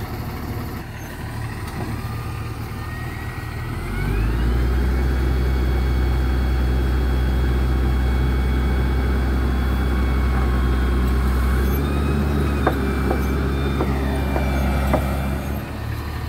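Diesel engine of an XCMG GR1803BR motor grader revving up about four seconds in and holding at high revs under heavy load while the stuck machine is worked free. It then eases back toward idle near the end, with a couple of clunks.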